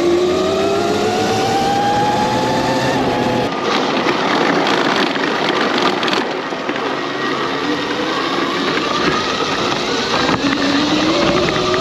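Electric go-kart's 48-volt QS motor whining under acceleration, its pitch rising as the kart gathers speed. About a third of the way in the whine fades into a rushing noise from the ride, then climbs again in the second half.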